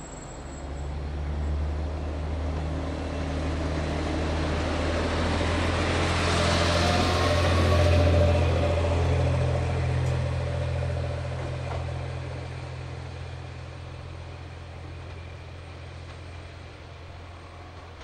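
KiHa 40 single-car diesel railcar pulling away: its diesel engine throttles up to a steady low drone about half a second in. The drone grows louder as the car passes close by with wheel-on-rail noise, then fades as it runs off into the distance.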